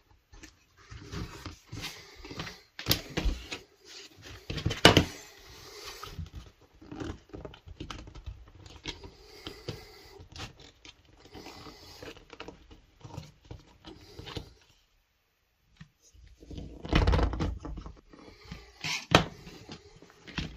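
Hand-crafting a leather sheath: irregular clicks, taps and scrapes of tools and leather being handled, with a sharp knock about five seconds in and a louder rustling stretch near the end.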